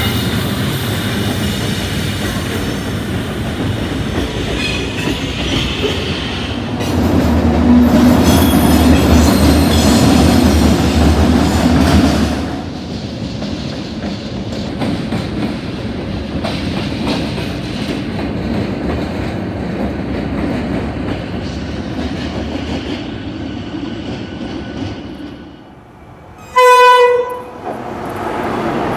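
Freight trains passing close by: loaded wagons rolling over the rails, with a louder stretch of deep diesel locomotive engine rumble in the middle. Near the end a diesel locomotive's horn gives one short, loud blast.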